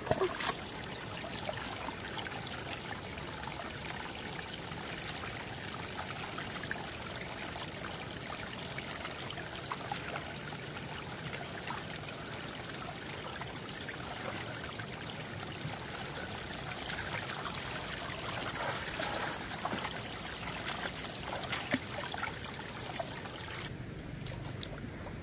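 Shallow water trickling and splashing, a steady rushing with many small splashes and drips scattered through. Shortly before the end the sound turns duller.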